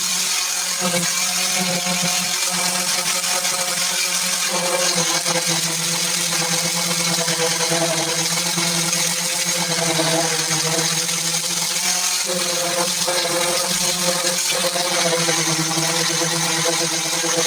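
Handheld power tool running steadily on a car body panel: a continuous whine that wavers a little in pitch as it is pressed against the metal.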